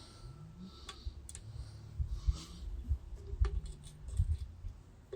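Irregular low thuds and light mechanical clicks from a Barco H-6 gasoline jackhammer, strongest through the middle of the stretch.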